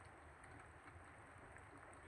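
Faint steady rain falling, with scattered drops ticking.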